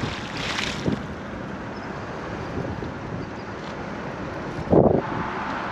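Wind buffeting the microphone over a steady outdoor rumble, with a short, loud, low bump near the end.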